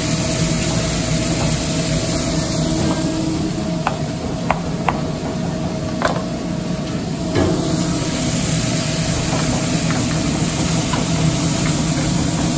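Chopped sirloin patties and butter sizzling in a hot pan on a gas range over a steady mechanical hum. Around the middle come a few sharp knife taps on a cutting board.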